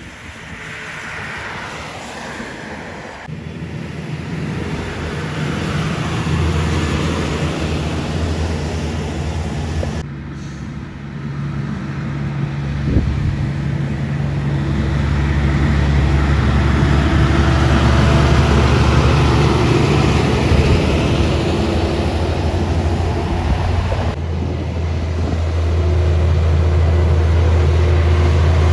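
Heavy diesel trucks passing on a highway one after another: a deep engine drone and tyre noise that grow louder as each truck approaches, with sudden changes where one passing cuts to the next.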